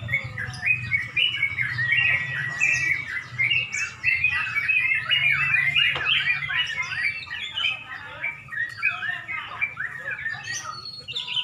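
Yellow-vented bulbuls (trucuk) singing, several at once: quick, overlapping chattering phrases with no break, over a low hum.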